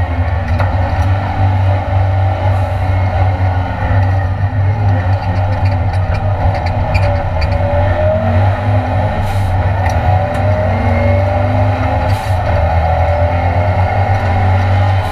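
Cosworth-engined Ford Escort Mk2 race car under hard acceleration on track, heard from inside the cabin. The engine pitch rises and falls as the revs change.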